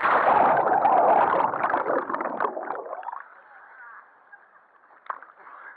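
A person and a handheld action camera plunging into the sea: a loud rush of splashing and bubbling water that fades out over about three seconds, then one sharp knock a little later.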